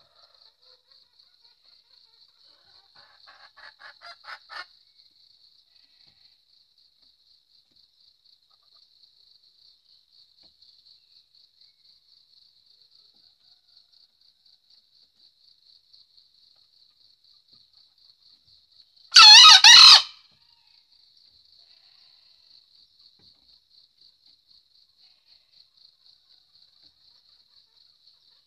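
Green junglefowl cock gives one short two-part crow about 19 seconds in. Around 3–4 seconds a run of clucks grows louder. A faint steady insect trill runs underneath.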